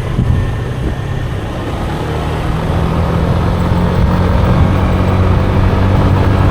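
Motorbike engine running steadily while riding along a road, with a steady hum and the rush of travel.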